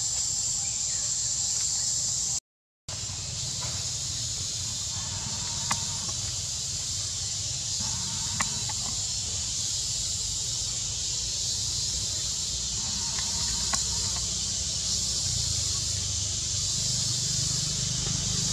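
Steady high-pitched drone of forest insects, with a low rumble underneath and a few faint clicks. The sound cuts out completely for about half a second, roughly two and a half seconds in.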